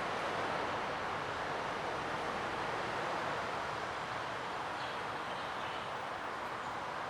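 Train running on the tracks: a steady rolling noise that eases slightly over the last few seconds, with no brake squeal.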